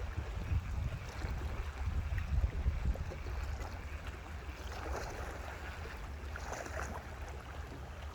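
Wind rumbling on the microphone over a steady wash of water noise, with a few brief rustles or splashes around the middle.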